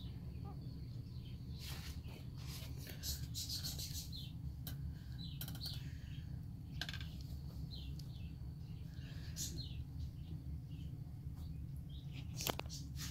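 Newborn corgi puppies squeaking: many short, high, falling squeaks scattered throughout. A few sharp clicks from handling the bedding, the loudest near the end, over a low steady hum.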